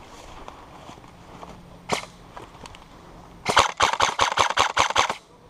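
Airsoft electric gun firing: a single shot, then about a second and a half later a rapid burst of about a dozen shots.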